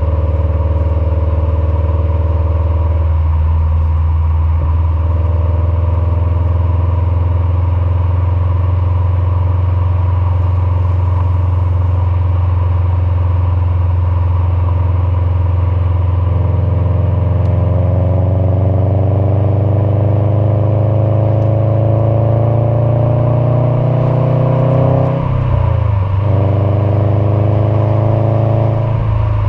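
Subaru STI's turbocharged 2.5-litre flat-four running through an Invidia R400 cat-back exhaust while driving: it holds a steady pitch, then pulls with the engine note climbing over several seconds. Near the end the pitch drops sharply at a gear change and builds again.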